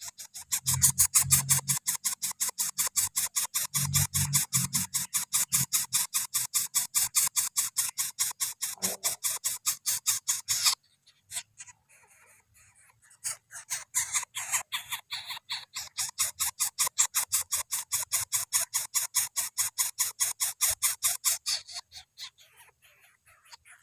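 Javan coucal nestling giving a fast, rasping pulsed call, about eight rasps a second, in two long runs with a pause of a couple of seconds about eleven seconds in.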